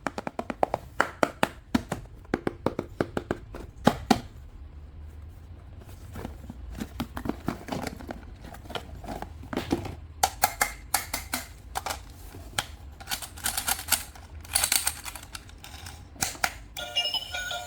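Rapid clicks and clatters of plastic being handled, as toys and their packaging are unboxed, in quick runs with a quieter stretch in the middle.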